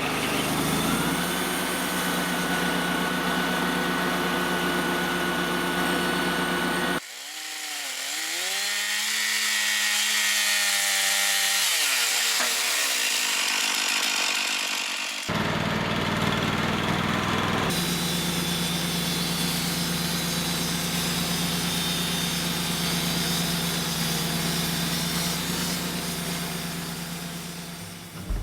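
Wood-Mizer LT35HD band sawmill running, its engine humming steadily while the band blade cuts through black walnut logs. The sound changes abruptly twice; in the middle stretch the low hum drops away, leaving a whine that dips in pitch and then holds, over a hiss of cutting.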